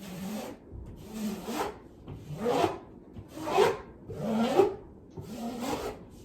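A 6-inch drywall taping knife scraped down over paper tape in wet joint compound, six strokes about a second apart, pressing the tape into the mud and squeezing out air.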